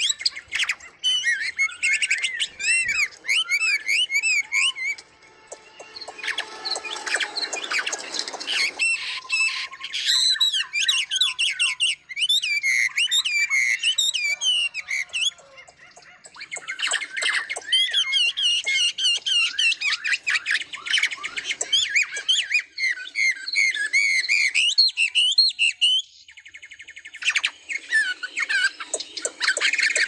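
Caged ornamental birds chirping and singing in quick runs of high, bending whistled notes. The song comes in bursts with brief lulls between them.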